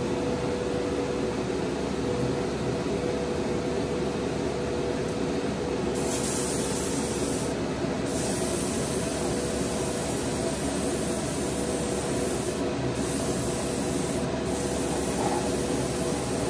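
Gravity-feed airbrush spraying paint: a high hiss comes in about six seconds in and breaks off briefly three times as the trigger is let go, over a steady motor hum.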